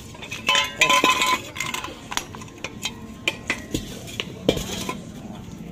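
Steel pieces clanking and clinking against a steel LPG cylinder as they are handled. A close cluster of metallic knocks with a brief ring comes about half a second in, then scattered single clinks follow.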